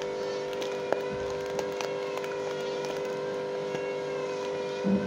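A steady mechanical hum holding several fixed pitches, with faint clicks and crinkles from a plastic fish bag being handled as its rubber band is worked loose, and a short soft thump near the end.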